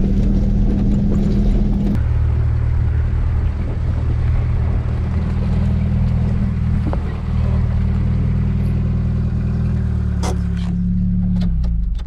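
Jeep Wrangler TJ engine running steadily while driving a rough off-road trail. A single sharp click comes about ten seconds in, and the engine note falls away near the end as the Jeep slows.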